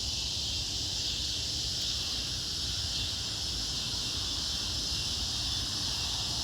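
Steady insect chorus, an even high-pitched chirring that does not let up, over a low steady rumble.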